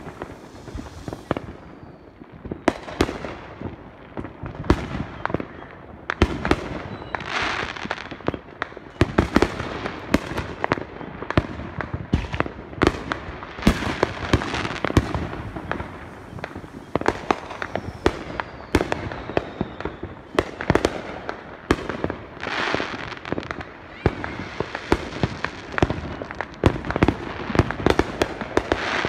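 Fireworks going off: a dense, irregular run of sharp bangs and pops, with bursts of crackling every so often.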